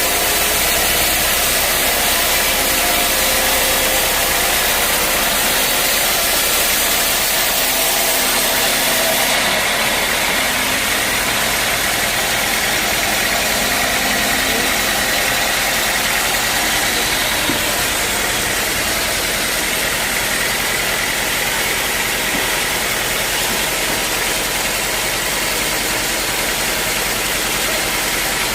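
Sawmill machinery running steadily with a loud, even engine-like noise, its tone shifting about nine or ten seconds in.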